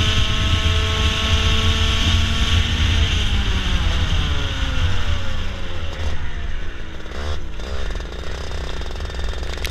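Kart engine running at high, steady revs, then falling in pitch for several seconds as the kart slows, and staying low near the end.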